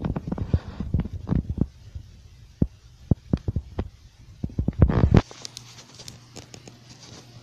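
Camera handling noise: fingers rubbing and bumping against the microphone in irregular knocks as cobwebs are cleared from the lens. The knocking stops about five seconds in, leaving a low steady hum and a few faint clicks.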